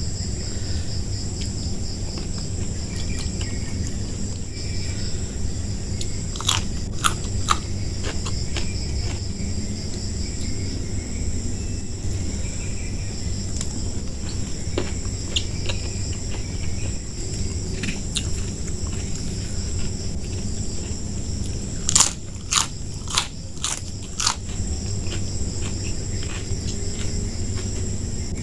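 Close-up crunching and chewing of crisp food such as raw vegetables, with a few loud crunchy bites about six seconds in and a quicker run of them about twenty-two seconds in. Crickets chirp steadily behind it.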